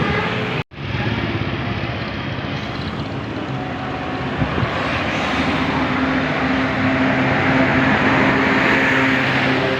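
Large tour bus driving past, its engine and road noise swelling louder over the second half, with a steady low engine drone underneath. The sound drops out completely for an instant under a second in.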